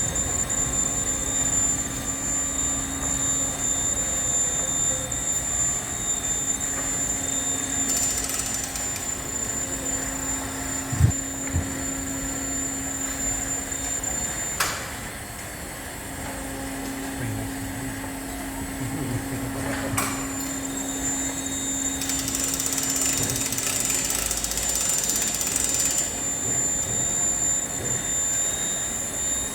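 Steady hum of running machinery with a high, constant whine, broken by short hisses of air about eight seconds in and again near the end, and a few sharp knocks.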